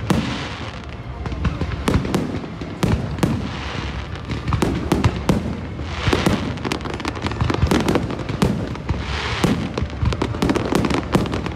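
Fireworks display: aerial shells bursting in a rapid, unbroken barrage of bangs, with waves of crackling every few seconds.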